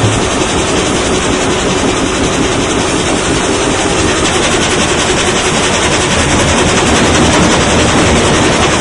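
Esterer gang saw running and cutting through a log, its blade frame and feed rollers making a loud, steady mechanical noise with a fast rhythmic pulse.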